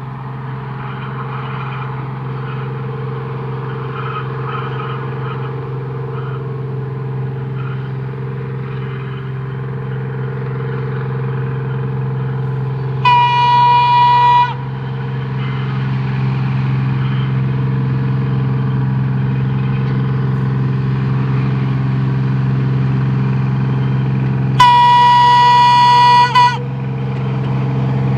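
Diesel-electric rail motor approaching under power, its twin Detroit Diesel 6-71 two-stroke engines running with a steady drone that grows louder as it nears. It sounds its horn twice, each time a single held note: a short blast about halfway through and a longer one near the end.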